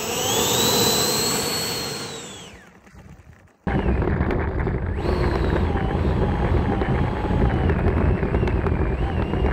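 E-flite Viper 70 mm electric ducted fan whining as it spools up, holds and winds back down. About a third of the way in, the sound switches suddenly to the jet's own mounted camera: the fan's wavering whine at taxi throttle over a heavy, steady low rumble.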